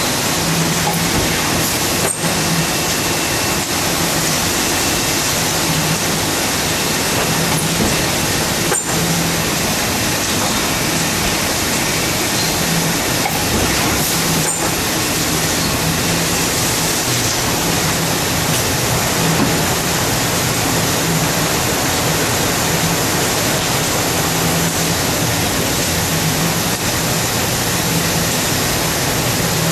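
A Wohlenberg 137 paper-cutting line running: a loud, steady rushing machine noise with a low hum that switches on and off every second or so.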